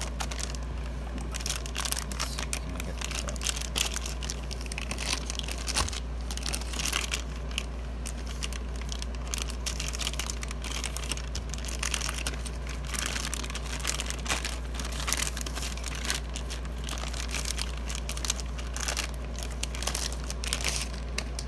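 Clear plastic bag crinkling and rustling in irregular bursts as a radio is pulled out of it and handled, over a low steady hum.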